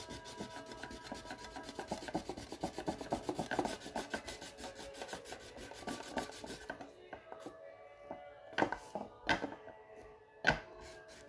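Rapid, evenly repeated scratchy rubbing strokes that fade out about seven seconds in, followed by three or four sharp clicks.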